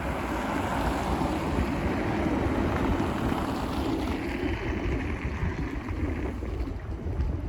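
Strong wind gusting over the microphones: a fluctuating low rumble with a rushing hiss, which grows brighter for a couple of seconds about four seconds in.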